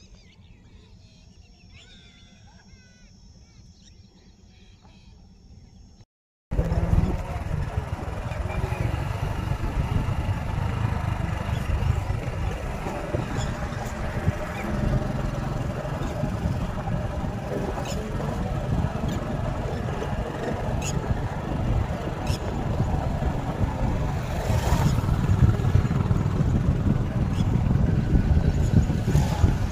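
Faint open-air ambience with a few bird chirps. After a sudden cut about six seconds in, loud wind buffets the microphone over the rumble of a moving vehicle travelling along the road.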